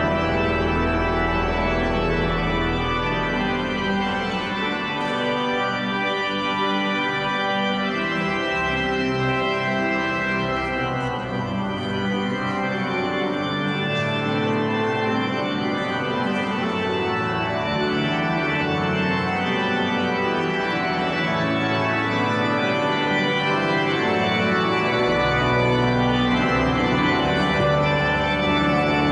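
Pipe organ playing slow, sustained chords that change every few seconds, with deep pedal notes at the start and again near the end.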